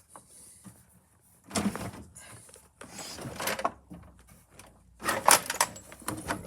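Tool-cabinet drawers holding measuring tools being slid open and handled, three separate bouts of sliding and rattling, the loudest about five seconds in.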